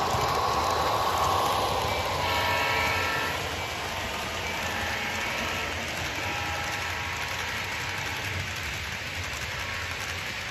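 Model diesel locomotive's onboard sound: a diesel horn chord at the start and again about two seconds in, over a steady engine rumble as the model freight train runs along the track.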